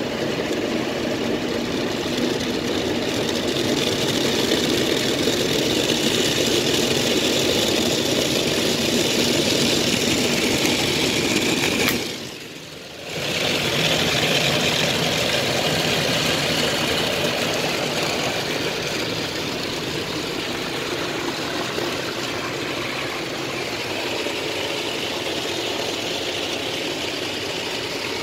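Automatic car wash heard from inside the car's cabin: a steady rush of water and foam spraying over the windscreen and bodywork. It drops away suddenly for about a second near the middle, then comes back.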